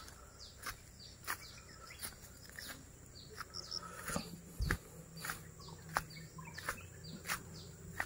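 Faint outdoor birdsong: small birds give short downward chirps. Sharp ticks come at a steady pace of about one every two-thirds of a second, with a dull thump about halfway through.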